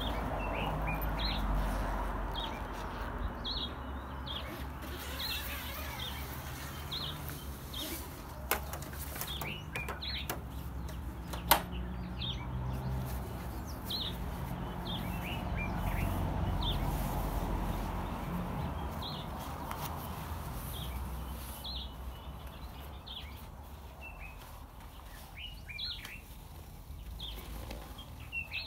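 Small birds chirping over and over, with the rustle and flap of canvas as a roof-rack awning is unrolled and spread out. A few sharp clicks near the middle come from the awning's frame being handled.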